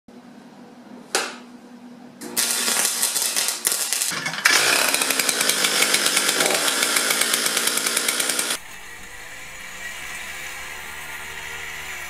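Stihl two-stroke chainsaw running hard with an even, rapid pulsing. It starts a couple of seconds in, after a faint opening with one sharp crack. Near the end it gives way to a quieter, steady small engine running.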